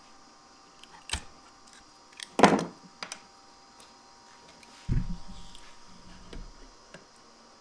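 Handling knocks in a workshop: a couple of sharp clicks and knocks, a brief scrape about two and a half seconds in, then a heavier thud with a short low rumble about five seconds in. No saw motor is running.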